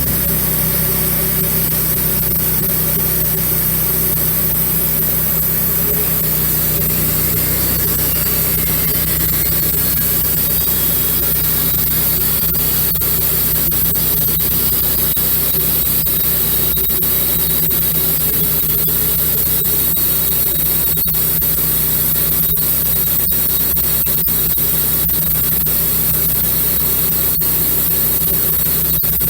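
Wood-Mizer bandsaw sawmill running at a steady speed while sawing boards from an oak log. It holds a constant engine tone under a high hiss.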